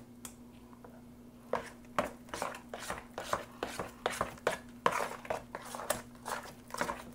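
Metal spoon stirring thick fritter batter of flour, milk and chopped conch in a plastic mixing bowl: repeated clinks and scrapes against the bowl, several a second, starting about a second and a half in.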